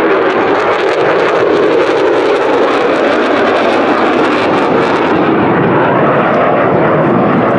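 F-16 fighter jet flying past, a loud, steady jet roar. The high hiss in the roar fades about five seconds in as the jet draws away.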